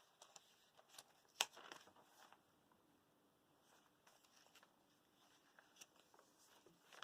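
Faint rustles and light taps of paper and card being handled as the pages of a handmade paper junk journal are turned, with one sharper tap about a second and a half in.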